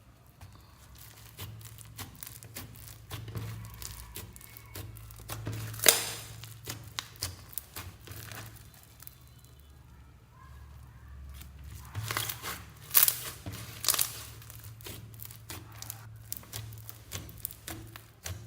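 Slime being squeezed and stretched by hand, giving irregular crackling and popping clicks. The loudest pops come about six seconds in and again between twelve and fourteen seconds.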